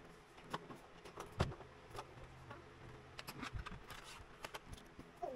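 Scattered small clicks and taps of a screwdriver and laptop parts being handled over the open laptop's motherboard, the sharpest about one and a half seconds in, over a faint low hum.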